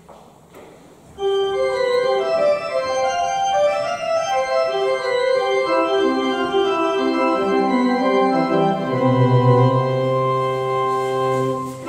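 Church organ starts playing about a second in, with held chords to which lower notes are added one after another; a deep bass note comes in near the end.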